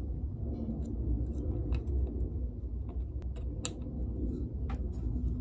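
Scattered light clicks and taps as a red plastic 12-gauge shotgun shell is handled in a hole in a wooden block and a thin metal tool is pushed into its folded crimp, the sharpest click a little past halfway. A steady low hum runs underneath.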